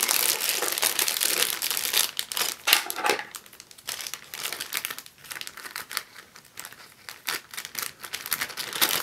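Clear plastic Lego parts bag crinkling as it is handled, busy for the first three seconds or so, then softer, scattered crinkles.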